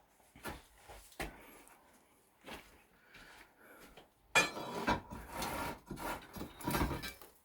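Knocks of bricks and concrete being shifted by hand, then a louder stretch of clattering and scraping about four seconds in, as a heavy concrete fireplace slab is levered up and propped.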